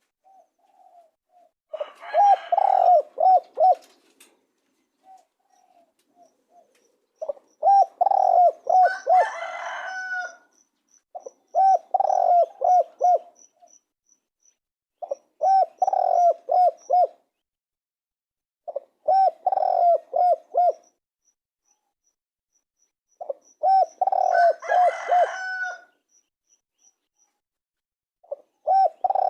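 Spotted dove cooing: a phrase of several short coos repeated about every four seconds, seven times.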